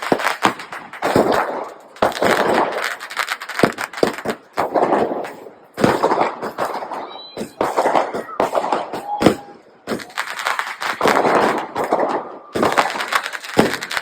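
Firecrackers and fireworks bursting one after another: sharp bangs and crackling clusters every second or so.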